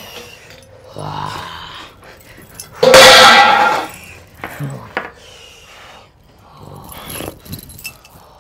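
A man letting out loud, growling animal-like roars. The biggest comes about three seconds in, with shorter growls about a second in and again near the end.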